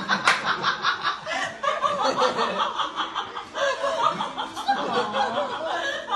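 Sustained laughter: quick, repeated bursts of giggling that go on without a break and cut off abruptly near the end.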